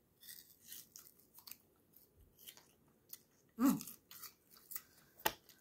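Crisp crunching as raw jicama slices are bitten and chewed, in many short crackly bites. A brief vocal sound comes about three and a half seconds in.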